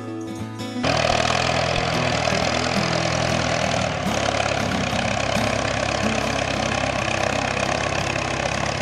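A motor vehicle's engine running steadily at a constant speed, cutting in abruptly about a second in.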